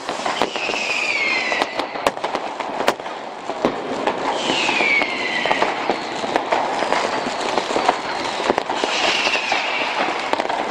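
Many fireworks and firecrackers going off at once: continuous crackling with frequent sharp bangs. Three whistles falling in pitch from whistling fireworks cut through it, about half a second in, around four seconds and near nine seconds.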